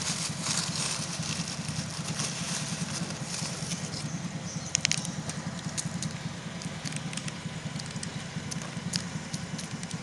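A steady low rumble, like a motor running, under scattered light clicks, with a short cluster of sharper clicks about five seconds in.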